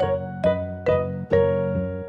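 Background music: a keyboard plays a simple melody, four notes in about two seconds, over a steady low accompaniment.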